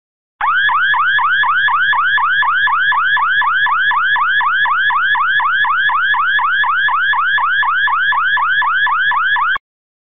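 Car alarm siren sounding a fast run of rising whoops, about four a second, starting just after the beginning and cutting off suddenly near the end.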